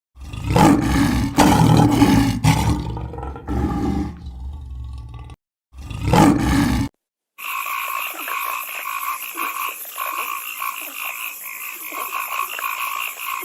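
A large animal roaring: a long deep, rough call, then a shorter one about six seconds in. After that comes a steady, continuous chorus of high, pulsing calls.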